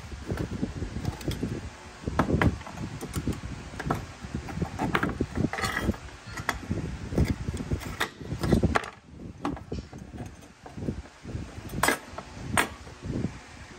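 Irregular knocking, clicking and rattling of hand work with tools and small parts, with no steady rhythm. There is a brief lull about nine seconds in, then a few sharper clicks near the end.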